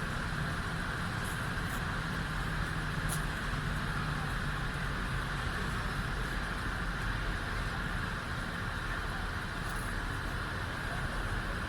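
An engine running steadily under a constant hiss, with a low hum through the first few seconds.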